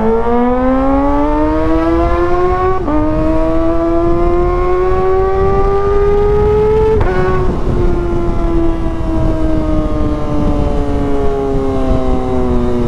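Kawasaki ZX-25R's 250 cc inline-four engine at full throttle on a top-speed run: revs climb, drop at an upshift about three seconds in, climb again, shift once more about seven seconds in, then hold high revs with the pitch slowly sagging. Wind rumble runs underneath.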